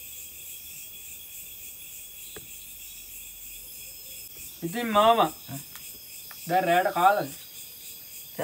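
Crickets chirping steadily as a continuous high-pitched drone. Twice, about halfway through and again a second and a half later, a man's voice comes in over it with short, wavering vocal sounds, and these are the loudest things heard.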